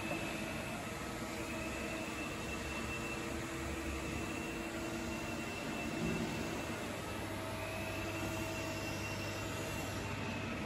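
Steady hum of running machinery in a workshop: an even hiss with a few faint steady tones. A brief low bump comes about six seconds in.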